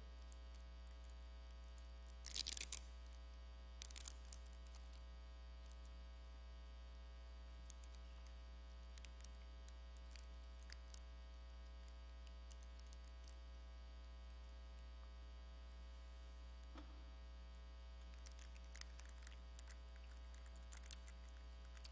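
Steady electrical mains hum in an otherwise quiet room. A short rustle comes about two and a half seconds in, a smaller one at about four seconds, and a few faint clicks near the end.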